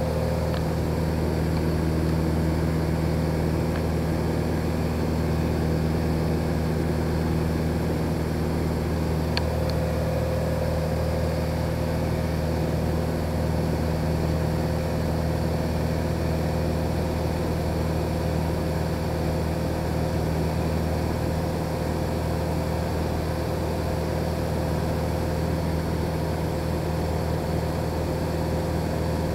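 Cessna 182G Skylane's Continental O-470 six-cylinder engine and propeller running steadily in cruise flight, heard from inside the cockpit as an even, low-pitched drone.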